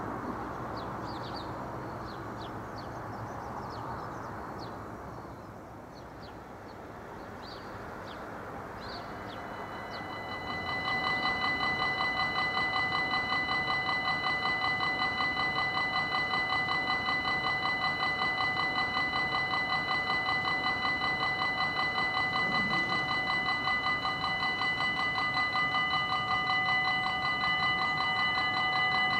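Railway level-crossing warning bell starts about ten seconds in and keeps up a loud, rapid, steady ringing, signalling that the crossing is closing for an approaching train. Before it, short high bird chirps sound over a low background hum.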